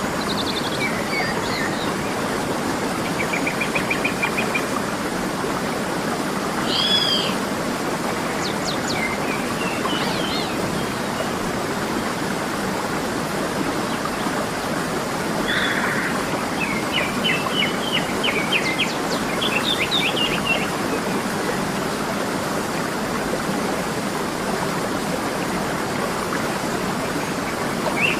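Waterfall rushing steadily, with songbirds chirping and trilling over it in scattered short calls and a longer run of quick chirps a little past the middle.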